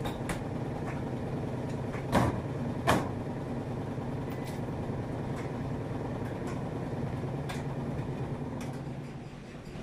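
Steady low hum of running laundry machines, with two sharp knocks about two and three seconds in from a dryer door being pushed shut.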